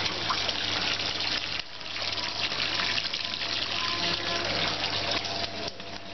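Flood water pumped out by a fish-pond pump, spraying from the cloth-wrapped end of its discharge hose over a sandbag wall and splashing down outside, with a steady low hum underneath.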